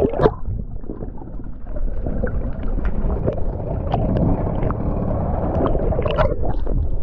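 Sea water sloshing and bubbling over a waterproof action camera held at the surface: a dense, muffled churning with small scattered ticks, as the lens dips under and rises through the waves.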